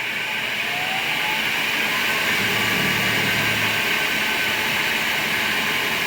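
Monarch 10EE lathe's DC spindle motor and belt drive spinning up after being switched back on, with a faint rising whine, growing louder over the first two seconds, then running at a steady speed.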